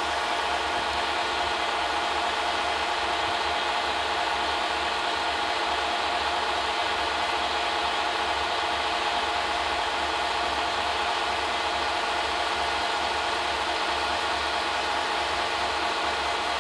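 Film projector running: a steady mechanical whir with a low hum underneath.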